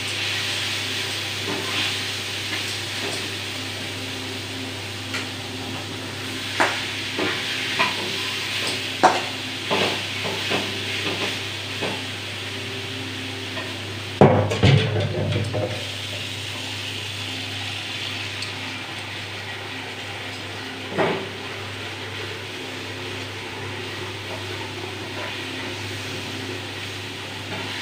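Okra frying in a pan with a steady sizzle, while a spatula stirs it with scattered scrapes and knocks against the pan, the loudest clatter about halfway through.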